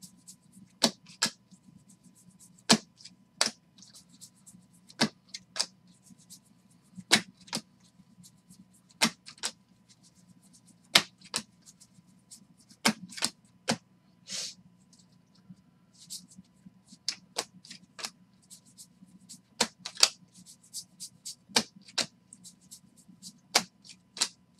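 Football trading cards being flipped through one by one by hand, each card snapping sharply as it is pulled off the stack, about one a second and sometimes two in quick succession, with one longer scrape about halfway through. A faint steady hum sits underneath.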